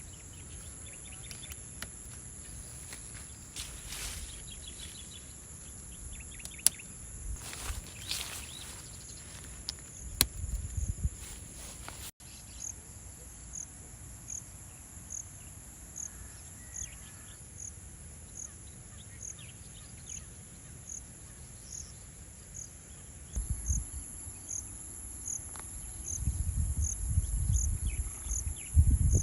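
Steady high insect buzzing in the grass. From about twelve seconds in, a cricket chirps in a regular rhythm, a little more than once a second. Low rumbles on the microphone build near the end.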